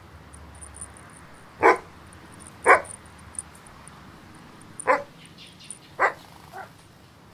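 A dog barking four times, short single barks spaced a second or two apart, with a faint high-pitched chirping ticking in the background.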